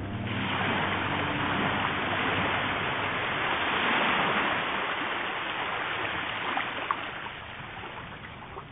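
Small sea waves washing up onto a sandy beach: a hiss of surf that swells to its loudest about four seconds in, then fades toward the end.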